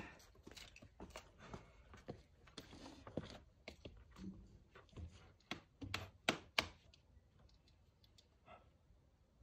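Scattered light clicks and knocks, with two sharp clicks close together about six seconds in.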